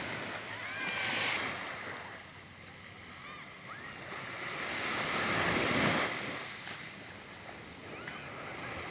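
Small, gentle sea waves breaking and washing up the sand, the surf swelling twice and loudest about five to six seconds in.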